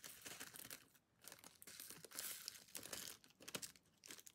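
Faint crinkling of a small clear plastic zip bag being handled and opened, in short crackles with a couple of brief pauses.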